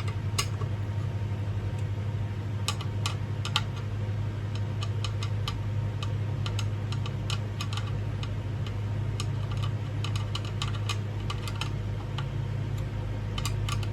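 Screws being tightened to fasten a ceiling fan blade: scattered, irregular clicks of a screwdriver working, over a steady low hum.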